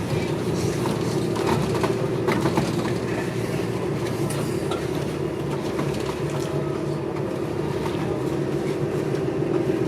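City transit bus in motion, heard from inside the cabin: a steady drive drone with scattered clicks and rattles from the bus body and fittings.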